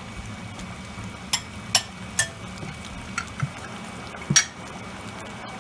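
A few short sharp clinks of a utensil against a cooking pan, about five in all, the loudest near the end. They sit over a steady low background hum while the curry cooks.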